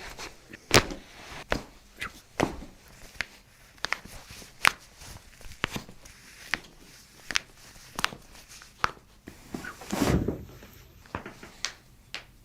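Footsteps on a hard floor at an even walking pace, about one step every three-quarters of a second, with a louder thump about ten seconds in.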